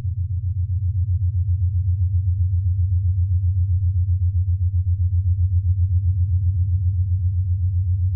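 Low, steady hum of a taut wire, picked up through a contact microphone clipped to it, pulsing rapidly and evenly several times a second.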